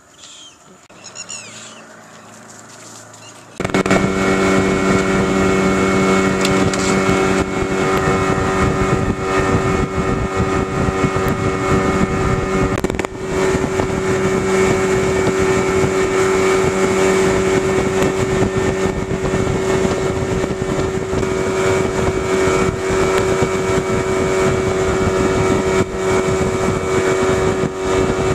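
A small boat's motor running steadily at a constant pitch. It cuts in abruptly about four seconds in, after a quiet stretch with a few high chirps.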